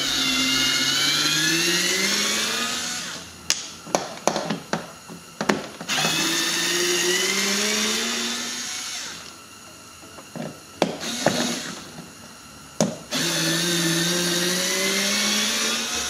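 Small cordless electric screwdriver with a Torx 25 bit, backing out the window regulator motor's mounting screws. Three runs of a whine that rises in pitch, each a few seconds long, with clicks and knocks from the bit and screws in between.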